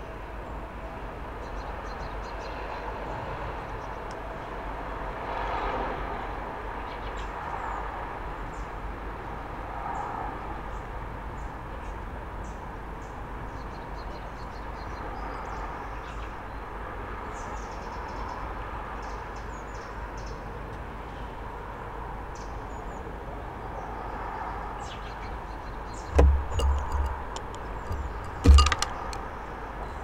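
Steady hum of distant traffic with faint high ticks. In the last few seconds, several sharp knocks with a low thud on the wooden bird feeder as a hawfinch moves into the seed dish and pecks.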